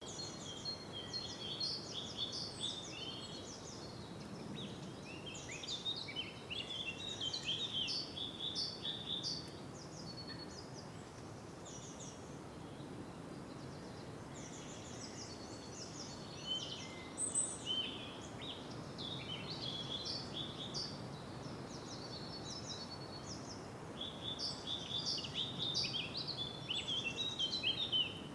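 Birds chirping and singing in a dense, overlapping chorus over a steady background hiss, with a lull in the calls from about ten to sixteen seconds in.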